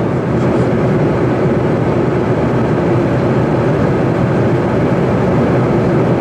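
Steady cabin noise of an Embraer Legacy 600 business jet in flight: an even, unchanging rush of airflow and engine noise from its twin rear-mounted turbofans, heard from inside the aircraft.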